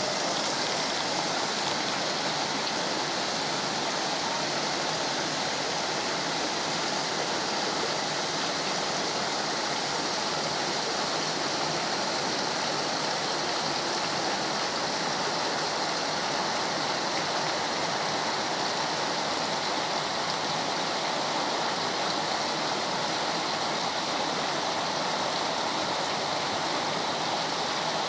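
Water rushing steadily over a low weir, one continuous even splash.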